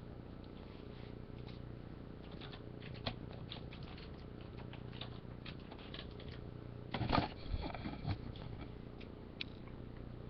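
Trading cards being handled and shuffled on a table: scattered soft clicks and slides, with a louder rustle about seven seconds in, over a faint steady hum.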